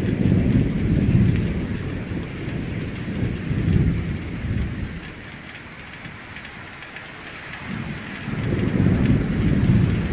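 Stormy weather: a steady hiss under three loud low rumbles that swell and fade, one at the start, one about four seconds in and one near the end.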